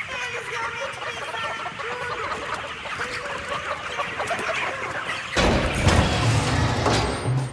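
A large flock of broiler chickens in a crowded poultry shed, many overlapping clucks and cheeps. About five seconds in, a sudden loud rushing noise with a deep rumble swamps them for about two seconds.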